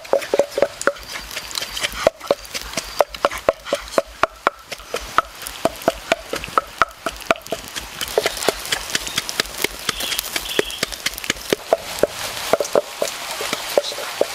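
A steady run of sharp knocks, irregular and about two or three a second, each with a short hollow ring.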